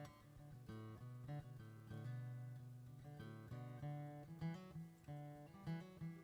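Background music: acoustic guitar playing a rhythmic plucked accompaniment.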